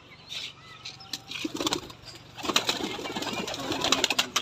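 Domestic pigeons in a wooden loft cooing, then a flurry of wing-flapping and rustling from about halfway through as a hand reaches into their pigeonholes.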